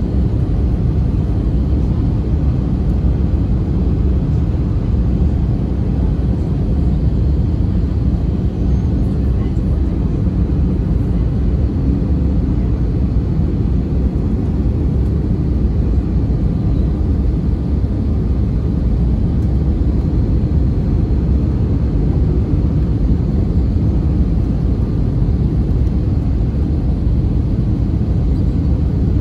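Steady in-flight cabin noise of an Airbus A320neo, heard from a window seat over the wing: the rush of airflow over the fuselage and the low drone of its Pratt & Whitney PW1100G geared turbofan engines. The noise holds even throughout, with no change in engine power.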